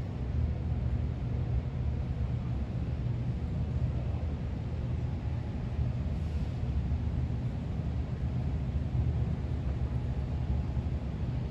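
Kubota KX033-4 compact excavator's diesel engine running at a steady speed, a low even drone with no change in pitch.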